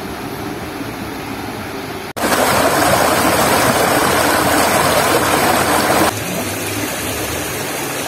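Shallow stream rushing over rocks: a steady water rush that jumps abruptly louder about two seconds in and drops back just after six seconds to a quieter steady rush.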